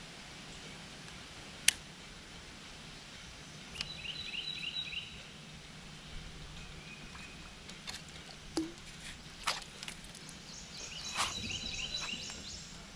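A songbird sings two short phrases of quick repeated high notes, about four seconds in and again near the end, over a steady outdoor background with a faint low hum. A few sharp clicks and knocks come through, the loudest a single click about two seconds in.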